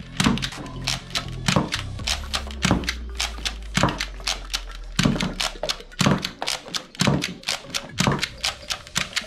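Sharp plastic clicks and taps from a toy revolver being handled, over background music with a heavier beat about once a second.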